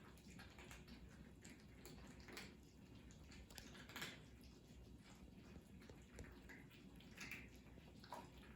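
Cats chewing and eating: faint, irregular small clicks and smacks, a few a little louder about two, four and seven seconds in.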